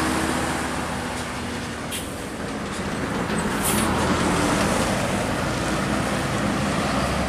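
Large tour bus passing close by and pulling away, its diesel engine running with a steady low hum over tyre and traffic noise. A short hiss of air about halfway through.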